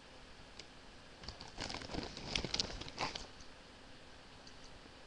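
Ridged potato chips crackling and crunching as they are handled and bitten, in a burst of crisp crackles from about a second to three seconds in.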